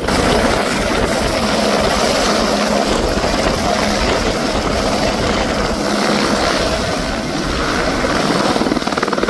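Airbus AS350 Écureuil single-engine turbine helicopter lifting off and climbing away at takeoff power: steady, loud rotor and turbine noise with a constant low hum.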